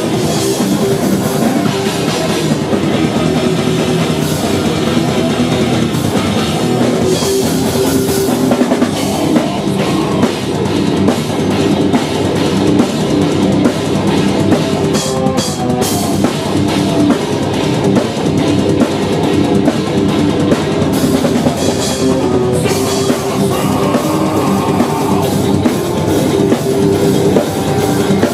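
A metal band playing live: distorted electric guitars and bass over fast, dense drumming, loud and continuous, with no vocals recognised.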